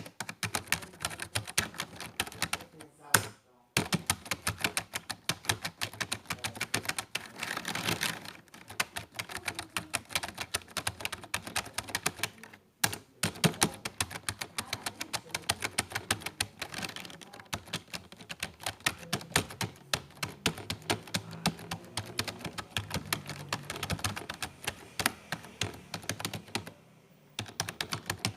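Rapid typing on a computer keyboard: keys clattering many times a second in long runs, with brief pauses about 3 seconds in and about 13 seconds in, and thinning out near the end.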